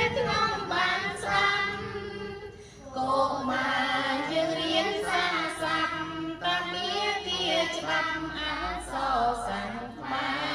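Children and a woman chanting together in a sung Khmer recitation of the alphabet's 33 consonants, with a brief break about three seconds in.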